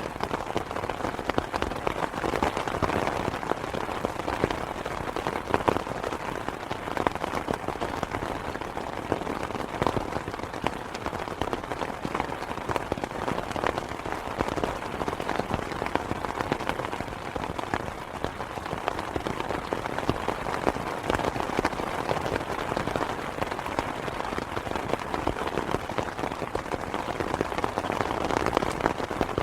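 Steady rain pattering on a fabric umbrella canopy, heard from underneath: a dense, even drumming of many drops.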